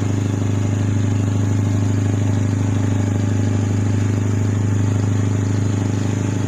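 Boat engine running steadily at a constant speed, a low even drone with no change in pitch.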